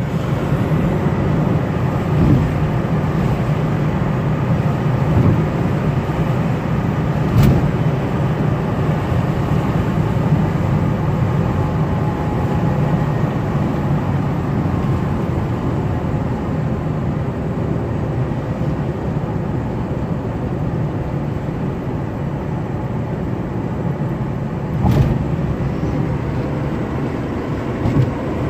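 Steady road and engine noise heard inside the cabin of a vehicle driving at speed. There is a short sharp knock about seven seconds in and another near the end.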